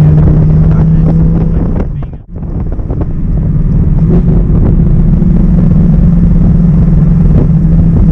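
Audi R8's 5.2-litre V10 engine running hard, its note dropping away sharply for a moment about two seconds in, then coming back and slowly rising in pitch.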